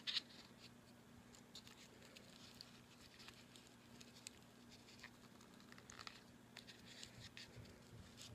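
Faint scratching and small scattered clicks of fingers working at a small box to get a fishing jig out of it.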